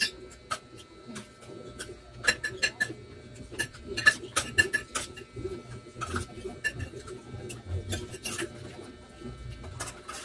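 Close-up eating sounds: irregular lip smacks and chewing clicks, with a spoon now and then tapping and scraping on a plate.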